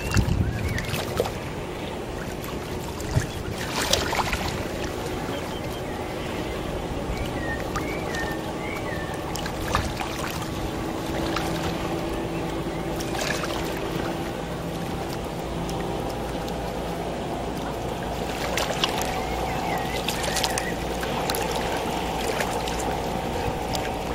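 Motorboat engine droning steadily over wind and water noise, its pitch settling higher about halfway through. A few short, high, curling chirps come in bunches, and there are occasional brief knocks.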